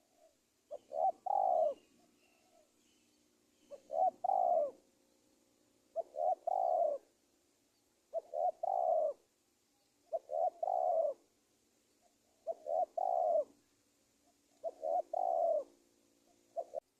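Spotted dove (tekukur) cooing as a decoy bird, repeating its call seven times about every two seconds: each phrase two short notes followed by a longer rolling coo.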